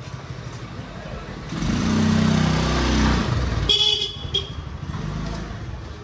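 A motorbike passes close by, its engine loudest for about two seconds, followed by a couple of short horn beeps.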